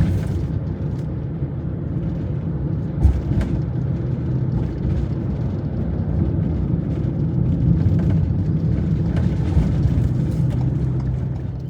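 Motor vehicle running steadily: an even low engine drone with road noise.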